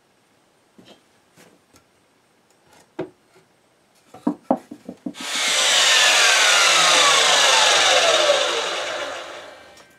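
Wooden boards knocking together as one is pulled from a leaning stack. Then a sliding compound miter saw starts with a sudden loud rush, cutting a thick wooden board, and its whine falls steadily in pitch as the blade spins down and fades.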